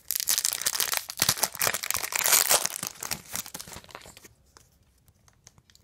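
Foil wrapper of a trading-card pack crinkling and tearing as it is torn open and the cards are pulled out. The crackling dies away a little past four seconds in.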